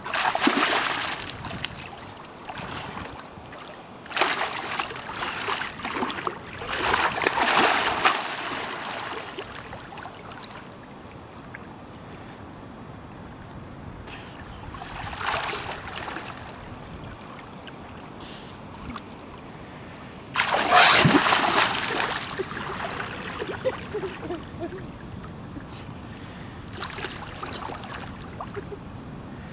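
New Zealand sea lion pup splashing and thrashing in shallow water: a series of separate bursts of splashing and sloshing, the loudest about two-thirds of the way through, with quieter stretches between.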